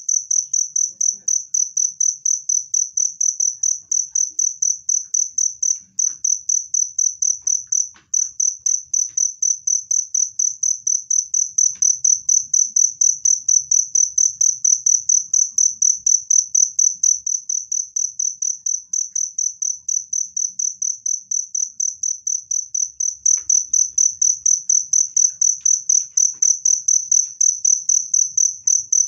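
Cricket chirping loudly in a fast, steady series of high-pitched pulses, with two brief breaks in the first third.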